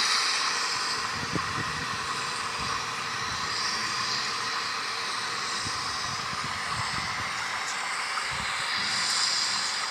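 Rainstorm sound effect played over outdoor show loudspeakers: a steady rushing hiss of rain, with faint low knocks now and then.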